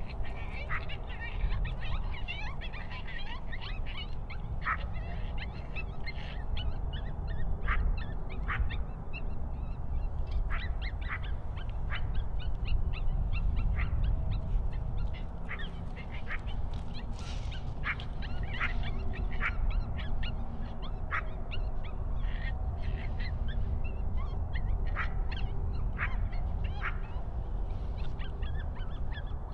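Many short animal calls scattered irregularly, several a second, over a steady low rumble.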